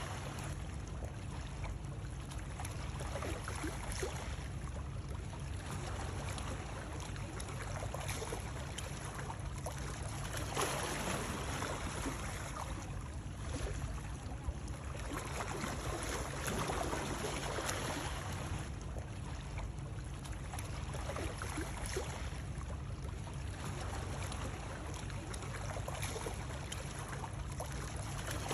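Continuous rushing water used as soothing white noise, swelling and easing every few seconds over a deep low rumble.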